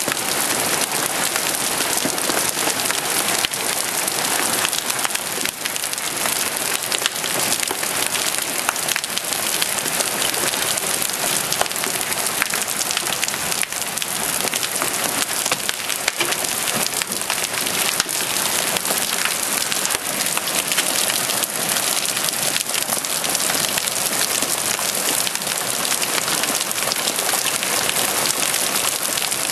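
Hailstorm with large hailstones, some near golf-ball size: a dense, steady clatter of hail and rain striking, dotted with many sharp single impacts.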